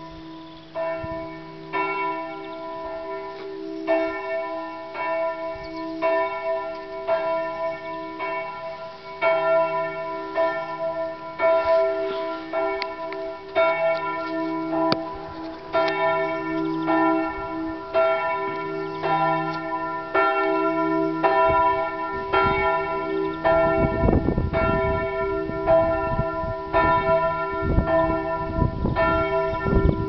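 Peal of several church bells of St. Margaretha ringing together, a quick, overlapping run of strokes with steady ringing tones. A low rumbling noise breaks in over the bells in the last several seconds.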